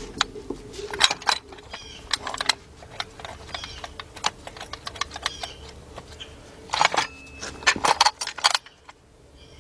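Metal hand tools clicking and clinking against metal in irregular runs while an alternator bracket is being bolted on, busiest about seven to eight and a half seconds in.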